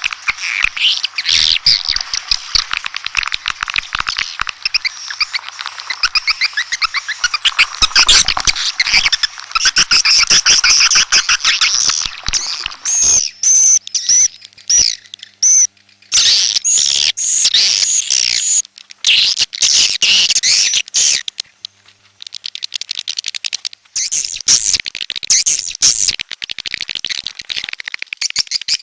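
Swiftlets twittering and chirping rapidly and densely, a swiftlet call track of the kind played to lure birds into a nesting house. The chatter is unbroken at first, then breaks into separate runs with short pauses past the middle.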